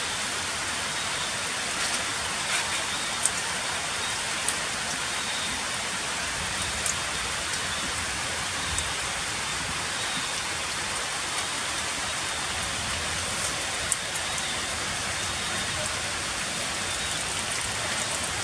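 Heavy rain falling on wet stone paving, a steady hiss with a few sharp ticks of close drops now and then.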